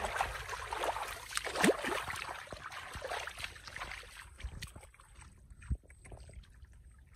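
Hands scooping and splashing through shallow muddy water, with wet squelches of boots stepping in mud. It is busy for the first few seconds, then thins to a few scattered splashes.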